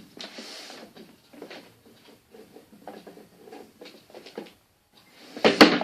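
Hands kneading and pulling sticky homemade slime, giving irregular soft crackling, squishing noises, with one loud crackling thump near the end.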